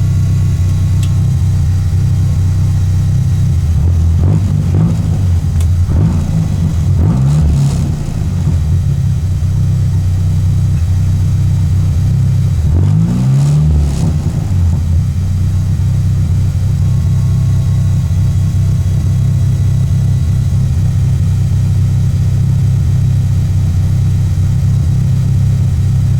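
Peugeot 205's engine running hard, with its pitch dipping and climbing again twice: between about four and eight seconds in, and around thirteen seconds in.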